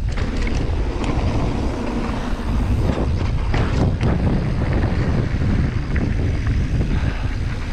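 Mountain bike rolling fast down a dirt trail: steady wind noise on the microphone and tyre rumble, with occasional clicks and knocks as the bike goes over bumps.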